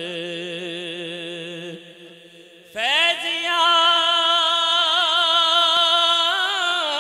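A man chanting a manqabat, a Sufi devotional poem, in long drawn-out notes with vibrato. One note fades out about two seconds in; after a short pause a new note rises sharply and is held loudly, then slides down near the end.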